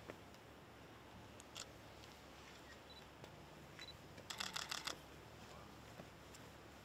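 Hushed background with a few faint isolated clicks, then a quick run of about six sharp clicks a little over four seconds in, lasting about half a second.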